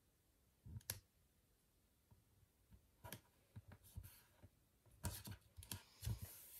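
Faint paper handling: a paper sticker crinkling and tapping between fingers, with a sharp click about a second in. Near the end comes a denser run of rustling and small clicks as the sticker is pressed and smoothed onto the planner page.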